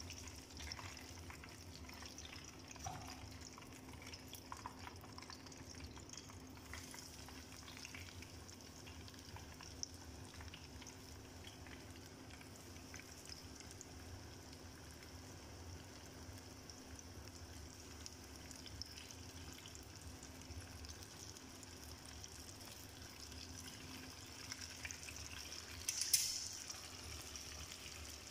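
Chicken pieces deep-frying in hot oil in a pot: a steady sizzle with scattered crackles. There is a short louder burst near the end.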